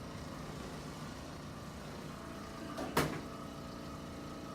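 A single sharp crack from a chiropractic adjustment thrust about three seconds in, the loudest sound, over a steady machine hum that picks up a steady tone shortly before it.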